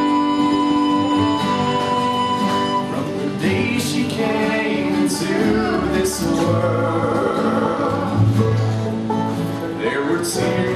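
Bluegrass band playing an instrumental break between verses: fiddle and harmonica carry the melody with long held notes over acoustic guitar and upright bass. A singer comes back in at the very end.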